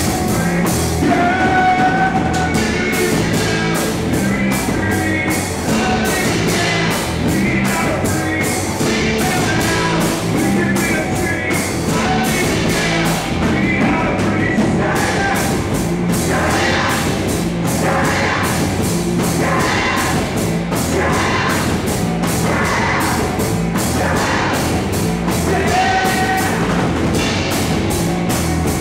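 Rock band playing live: electric guitar and bass guitar over drums keeping a steady beat.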